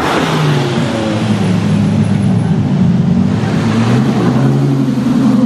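A car sweeps past close by at the start, its sound falling in pitch. Then a Ferrari FF's V12 runs steadily at low revs as the car rolls by, its note rising slightly in pitch around the middle.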